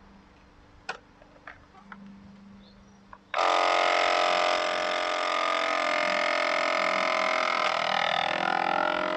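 CASO VC10 vacuum sealer: a few light clicks as the lid is pressed shut, then about three seconds in the pump starts abruptly and runs steadily, drawing the air out of the bag, its pitch wavering near the end as the bag pulls tight.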